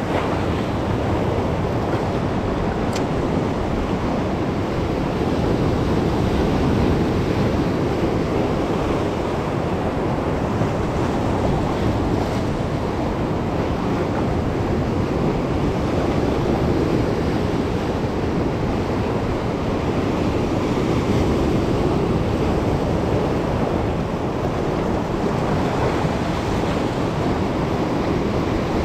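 Sea surf breaking and washing over shoreline rocks: a steady, continuous rushing of waves and foam.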